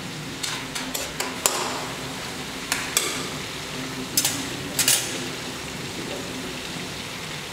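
Chicken pieces frying in hot oil in a steel wok, with a steady sizzle. A metal slotted spoon stirs them and clinks and knocks against the wok about nine times in the first five seconds.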